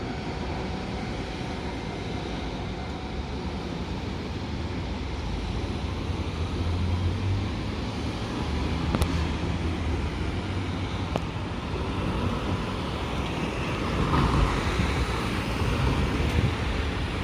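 Train running past at a railway level crossing, a steady rumbling noise that swells about fourteen seconds in, with a few sharp clicks.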